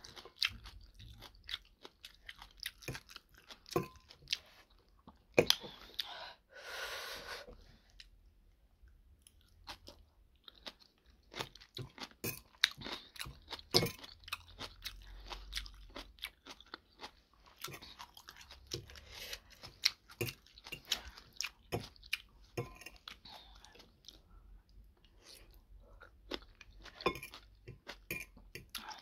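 Close-up chewing and crunching of homemade kimchi, with many short sharp clicks from the mouth and the fork against the bowl, and a hiss of about a second around seven seconds in.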